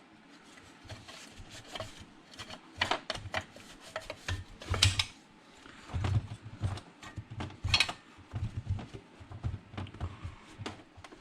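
Irregular handling noises on a workbench: rubbing, clicks and a few sharper knocks as a chainsaw part is wiped clean with a rag and moved about.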